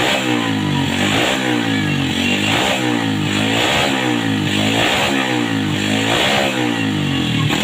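A Yamaha Vega R's single-cylinder four-stroke engine is revved over and over, its pitch rising and falling with a throttle blip about every two-thirds of a second, then settling to idle at the end. This is the throttle test for the hesitation ('brebet') that the carburettor cleaning is meant to cure.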